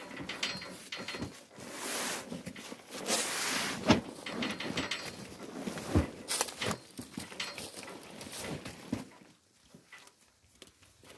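Woven plastic sacks of harvested coffee being shoved and dragged across a wooden truck bed, rustling and scraping, with two heavy thuds as sacks drop onto the boards about four and six seconds in. It goes much quieter near the end.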